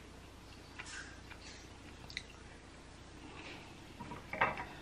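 A person faintly chewing a mouthful of crisp, cheesy birria quesadilla, with a few soft mouth clicks scattered through.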